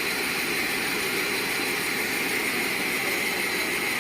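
Sawmill machinery running steadily, a continuous even noise with no separate strikes or pauses.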